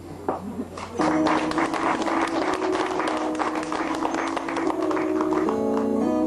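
Audience clapping, starting about a second in, over steady background music that changes to a new chord near the end.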